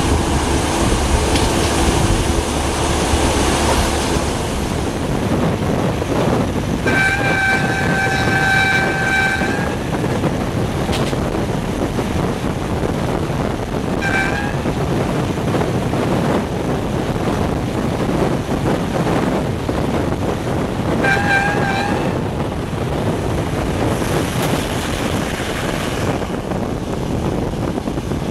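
Train horn sounding three times: a long blast of nearly three seconds about a quarter of the way in, a short toot around the middle, and a wavering blast of about a second three quarters through, over the continuous rumble of a train running on the line.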